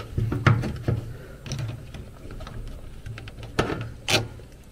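Pliers working the spring hose clamps off rubber condensate drain hoses: sharp metal clicks and snaps with handling noise, a cluster in the first second and two more a little before the end.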